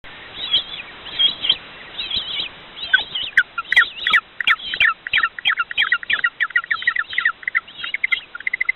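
Birds chirping and twittering in short high calls, which become a fast, dense run of repeated chirps from about three seconds in.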